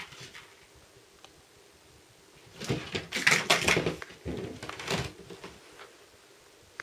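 A kitten playing with a toy mouse: a flurry of quick knocks, scuffles and rustles that starts about two and a half seconds in and lasts around two and a half seconds.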